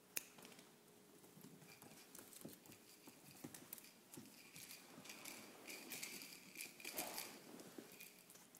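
Puppy playing: faint, irregular clicks, taps and scuffles, with one sharp click just after the start and busier scrabbling later on.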